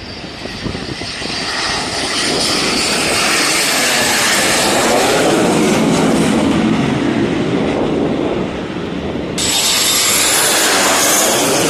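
BAE Hawk jets of the Red Arrows flying past: the roar of their turbofan engines builds over the first few seconds and stays loud and steady. Near the end the sound changes suddenly, gaining a sharper hiss.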